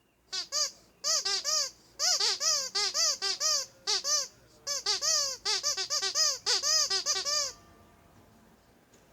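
Ledraplastic rubber duck squeaky toy squeezed over and over: quick squeaks that each rise and fall in pitch, coming in bunches of several, and stopping about seven and a half seconds in.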